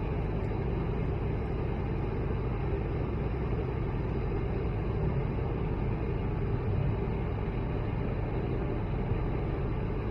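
Steady cabin noise of an Airbus A220-100 climbing out after takeoff: the even, low rumble of its Pratt & Whitney PW1500G geared turbofan engines and the rushing airflow, heard inside the cabin.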